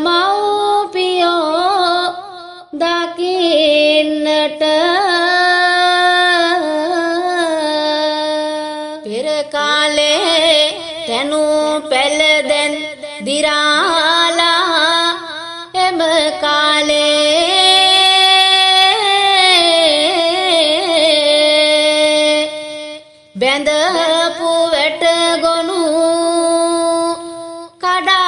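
A single voice singing Sinhala folk verses (jana kavi) to a slow traditional melody. It holds long notes with gliding ornaments, and there are short breaks between the sung lines.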